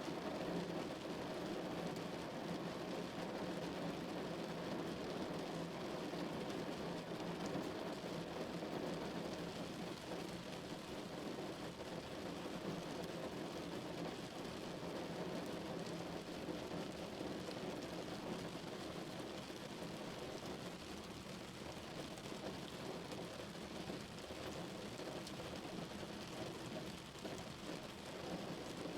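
Rain falling on a car, heard from inside the cabin: a steady, dense patter with no break, easing a little in the last third.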